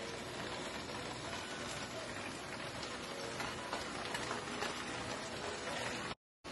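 Pot of palm oil rice sizzling steadily on a hot electric burner. The sound cuts out abruptly near the end.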